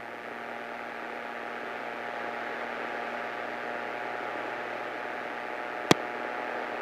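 Muffled, steady drone of a light aircraft's engine heard in the cockpit through a hissy recording, slowly growing louder. A single sharp click comes near the end.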